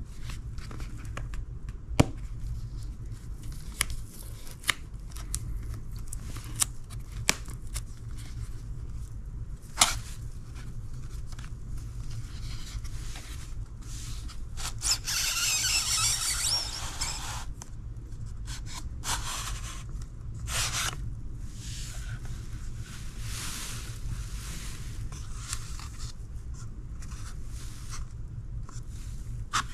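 Handling noise from unboxing a cardboard phone-case box: scattered sharp taps and clicks, then a few seconds of cardboard scraping about halfway through as the inner tray slides out of its sleeve, with lighter rustling after. A low steady hum lies under it all.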